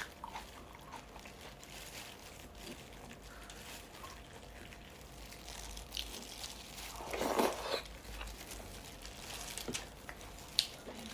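Close-up eating sounds of sinigang soup: soft chewing and small clicks, with a louder slurp of broth about seven seconds in.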